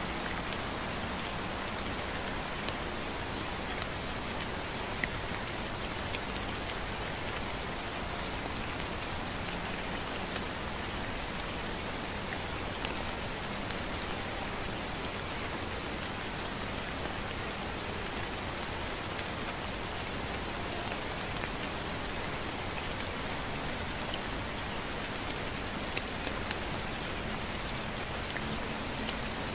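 Gentle rain falling steadily: an even hiss with scattered soft drop ticks.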